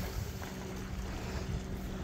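Wind buffeting the microphone with sea surf washing against rocks, a steady mix of rumble and hiss, with a steady low hum underneath.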